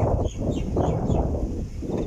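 A steady low rumbling outdoor noise, with faint short bird chirps above it.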